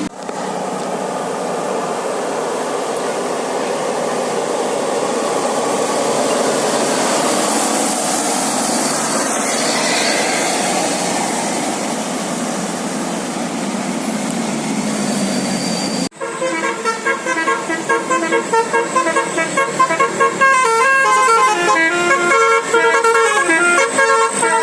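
A steady rushing road noise, then after an abrupt break about two-thirds of the way in, a bus's 'basuri' telolet musical horn playing a quick tune of short, stepping notes, louder than the road noise.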